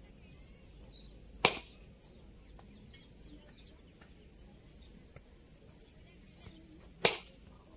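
Cricket bat striking the ball twice, each a single sharp knock, the two about five and a half seconds apart.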